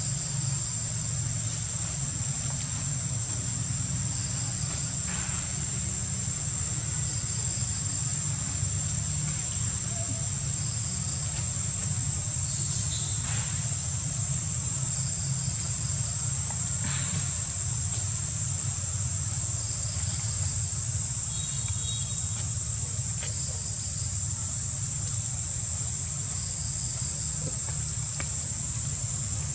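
Insects droning steadily at a high, even pitch over a steady low rumble, with a few faint short chirps and light clicks scattered through.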